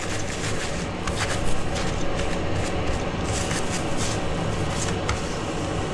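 A few brief hisses of circuit-board cleaner sprayed onto an instrument-cluster circuit board, over a steady low background hum.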